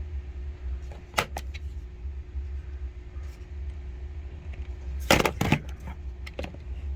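Plastic clicks and knocks of a battery pack being fitted onto a Sony Handycam camcorder: two light clicks about a second in, then a louder cluster of clicks about five seconds in, over a steady low hum.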